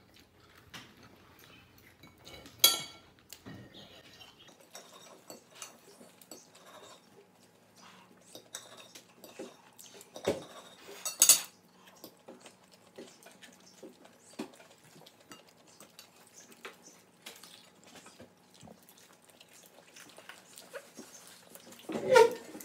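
Cutlery and dishes clinking now and then at a meal, with quiet eating sounds between. There is a sharp clink about a quarter of the way in and two more around the middle, and a short, louder sound with some pitch near the end.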